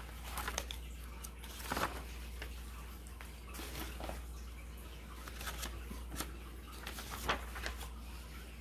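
Paper rustling in short, irregular bursts as a stack of printed recipe sheets is leafed through, over a steady low hum.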